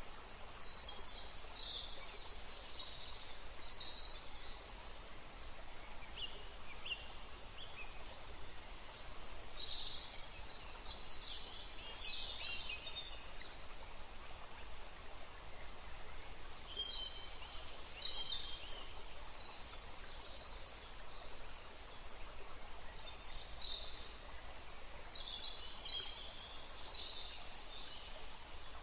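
Small birds chirping in short clusters of quick, high notes, about four bursts of song, over a steady background hiss.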